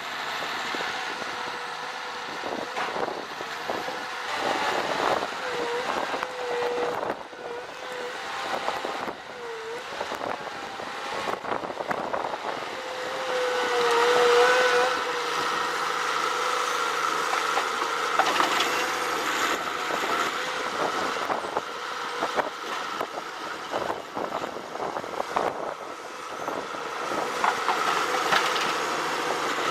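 A heavy machine running, its motor note wavering in pitch now and then, with frequent knocks and clatter.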